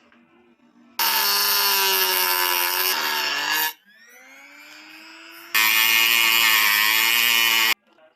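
A power tool motor runs hard in two bursts of two to three seconds each, starting and stopping abruptly. Between the bursts it runs more quietly with its pitch rising.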